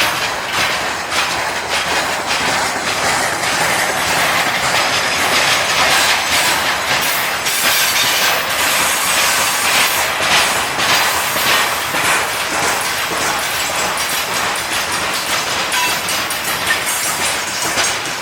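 Freight train wagons rolling past, their wheels knocking and clattering over the rail joints in a loud, steady rattle.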